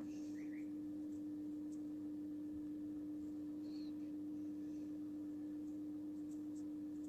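A steady hum at one pitch, with faint rustling and a few light clicks from a steel crochet hook working cotton thread.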